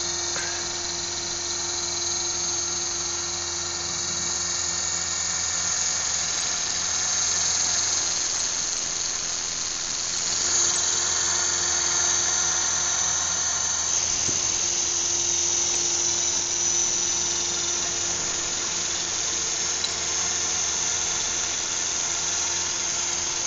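Small radio-controlled helicopter running steadily, its motor and spinning rotor giving a high-pitched whine.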